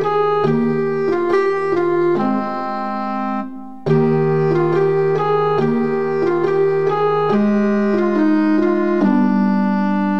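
Instrumental background music on a keyboard, with held organ-like notes changing every half second or so. It drops out for a moment a little before four seconds in, then starts again.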